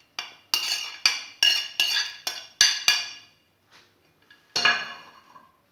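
Metal kitchen utensils clinking as grated onion is tipped into a strainer: about eight quick ringing taps, roughly three a second, then one more after a pause.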